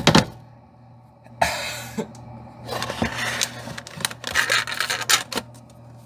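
A thump right at the start, then several bursts of plastic-bag crinkling and rustling as food is handled and pulled out of a fridge, over a low steady hum.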